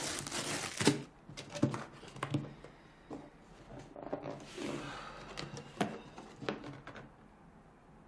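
Packing tape on a cardboard box being slit open, a ripping tear in the first second. Then cardboard flaps are pulled open and handled, with scattered knocks and rustling that stop about seven seconds in.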